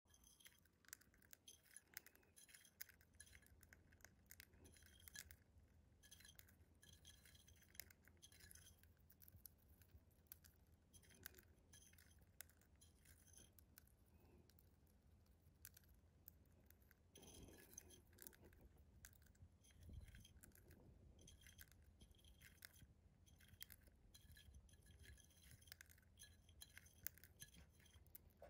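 Budgerigar pecking and munching seed food from a small plastic cup: quick, irregular, faint clicks of its beak against the cup and the food.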